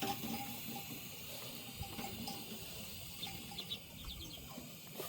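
Quiet outdoor ambience: a steady high hiss with a low rumble beneath, and a few faint short chirps in the second half.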